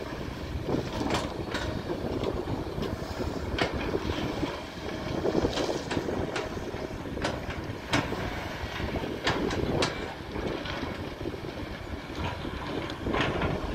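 Kobelco long-reach excavator's diesel engine running steadily under load, with irregular sharp metallic clanks and knocks from the working machine.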